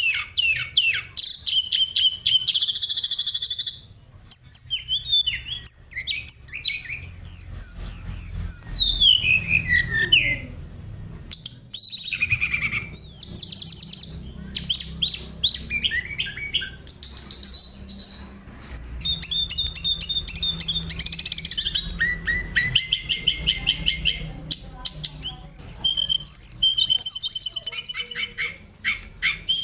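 Oriental magpie-robin singing a loud, varied song of clear whistles, sliding notes and rapid trills, in phrases broken by short pauses, over a faint low hum.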